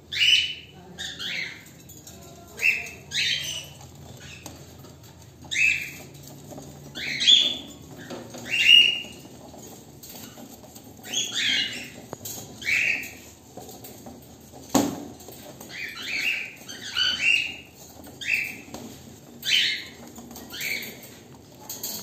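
Cockatiels calling: a string of short, sharp chirps that fall in pitch, singly or in quick pairs, every second or so. A single sharp knock comes about fifteen seconds in.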